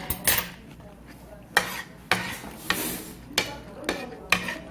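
Metal spoon scraping and clinking on a plate while scooping up leftover sauce, in a string of sharp strokes roughly every half second.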